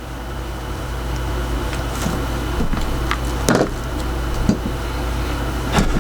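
A steady low hum, with a few short knocks, the clearest about three and a half and six seconds in.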